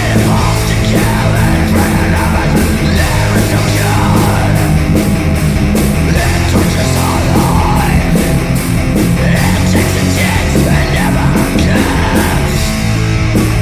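Loud heavy punk rock: distorted guitar, bass and driving drums with steady cymbal hits, and shouted vocals. Near the end the cymbals drop out while the guitar carries on.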